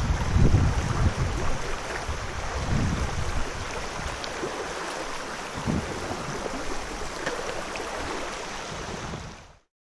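Shallow stream running over rocks in a riffle, a steady rushing, with low rumbling buffets on the microphone in the first few seconds. The sound cuts off abruptly near the end.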